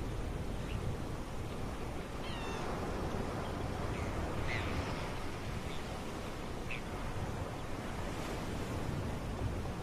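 A few short, high mewing bird calls, one with a wavering falling pitch about two and a half seconds in, over a steady wash of sea and wind with a low rumble underneath.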